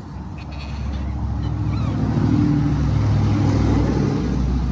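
An unseen engine running steadily, a low hum that grows louder over the first two seconds and then holds.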